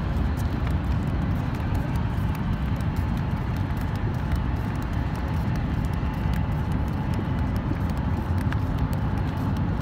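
Steady low rumble of distant city traffic, with faint scattered ticks over it.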